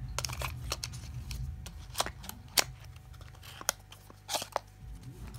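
Close handling noise: rustling with a string of sharp clicks and crackles, over the low rumble of a handheld phone being moved about.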